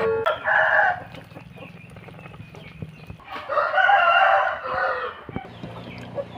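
A rooster crowing: a short call about half a second in, then a longer, louder crow of about a second and a half near the middle.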